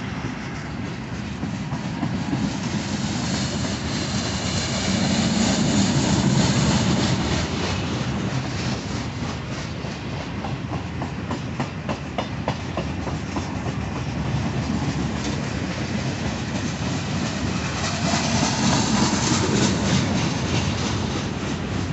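Freight train cars rolling along the rails: a steady rumble of steel wheels with a clickety-clack of wheels over rail joints, which swells a few seconds in and again near the end.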